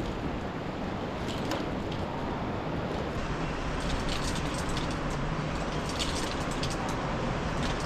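Steady rush of sea surf and wind noise, with scattered sharp clicks and ticks from about the middle on.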